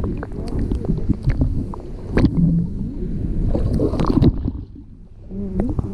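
Water rushing and gurgling around an underwater camera as it is reeled up through the sea with a hooked snapper, with scattered sharp clicks and knocks. It breaks the surface about four seconds in.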